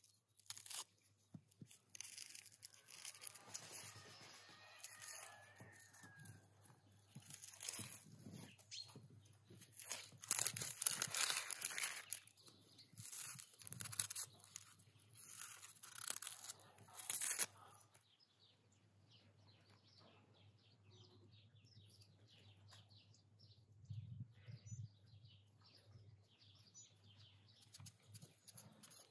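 Small kitchen knife peeling raw potatoes and an onion by hand: repeated crisp scraping and crunching of the blade through the skins and the tearing of dry onion skin. The peeling is loud and busy at first and becomes much quieter about two-thirds of the way in.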